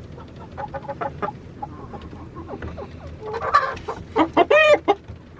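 Chickens clucking softly in a run of short calls, with a few louder, drawn-out calls between about three and a half and five seconds in.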